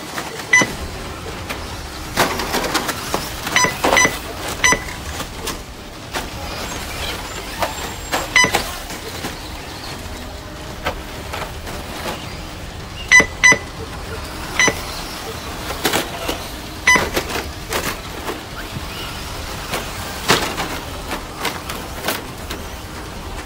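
Radio-controlled cars racing on a dirt track: motor whine and tyre noise rise and fall as the cars pass. Short electronic beeps from the lap-timing system sound about a dozen times, singly and in quick pairs, as cars cross the line.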